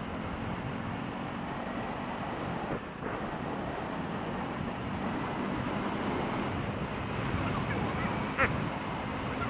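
Steady rumbling background noise with faint voices in it, and a single sharp click near the end.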